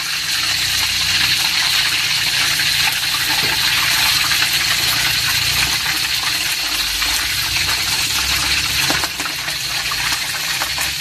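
Chicken pieces deep-frying in a wok of hot oil: a steady sizzle with occasional small pops.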